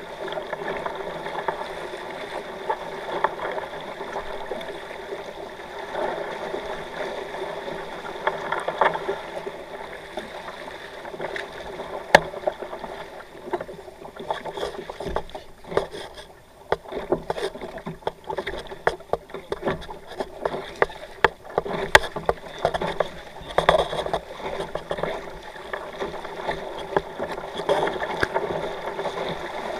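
Water washing against the hulls of a kayak catamaran under sail, with wind noise. Scattered sharp knocks and clicks come through the middle of the stretch, the two loudest about twelve and twenty-two seconds in.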